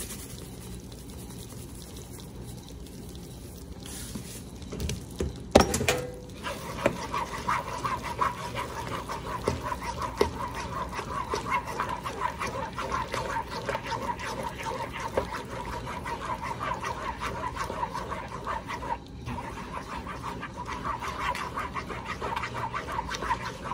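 Thick cheese sauce being stirred in a large metal pan: a continuous quick, wet scraping and squelching that starts just after a single knock about six seconds in.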